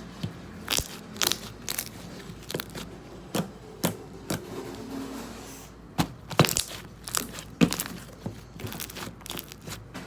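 Slime with crunchy flake add-ins being pressed and worked by hand, giving irregular crackles and sharp pops, one or two a second.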